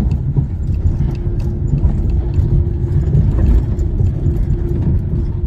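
Car driving slowly over a rough dirt and gravel lot, heard from inside the cabin: a low, uneven rumble of tyres and engine with a faint steady hum under it.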